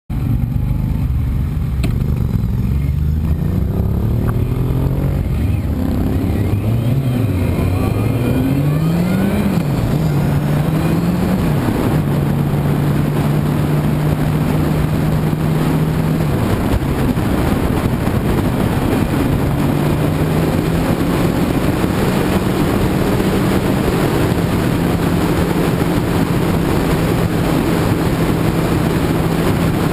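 Motorcycle engine heard from the bike itself, accelerating through the gears: its pitch climbs and drops back several times in the first dozen seconds, then holds steady at cruising speed. Wind rushing over the microphone grows with speed.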